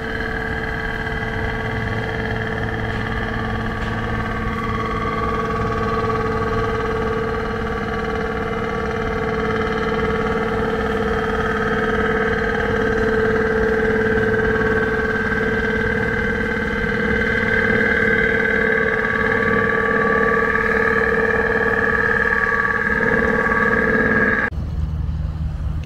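Engine of a river cargo vessel running steadily as the boat passes close by: a low rumble with a steady whine over it, cutting off suddenly near the end.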